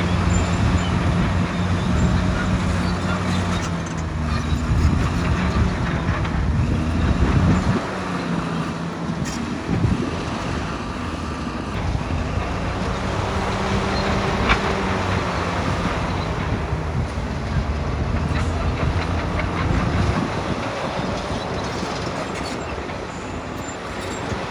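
Heavy construction machine's engine running with a steady low hum that weakens and changes pitch about eight seconds in.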